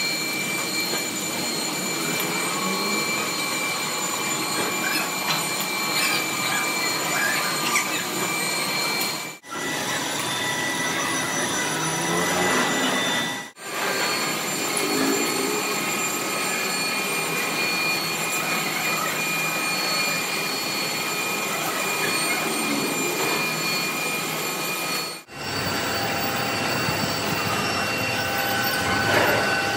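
Steady whirring machine-shop machinery with several high, steady whining tones, broken by three abrupt cuts: about a third of the way in, a few seconds later, and again about five seconds before the end.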